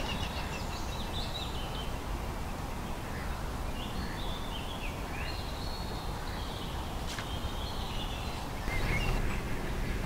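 Small woodland birds singing, in short phrases of quick high notes that come twice and again near the end, over a steady low rumble of background noise.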